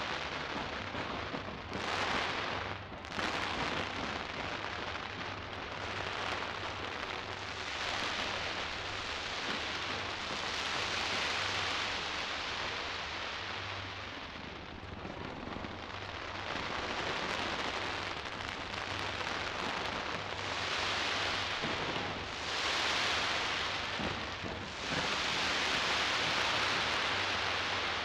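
Aerial fireworks display going off continuously: a dense crackling barrage that swells and eases several times.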